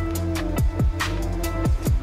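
Electronic background music with a steady beat: deep kick drums that drop in pitch, coming in pairs, over a held bass and crisp percussion.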